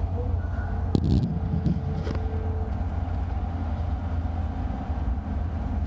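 Steady low rumble of road and engine noise inside a moving car's cabin, with a couple of short clicks about one and two seconds in.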